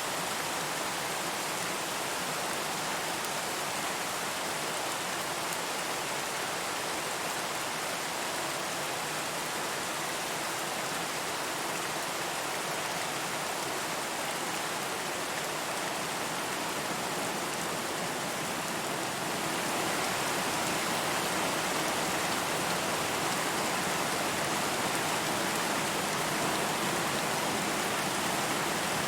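Steady rain falling, an even hiss of many drops. About two-thirds of the way through it becomes slightly louder.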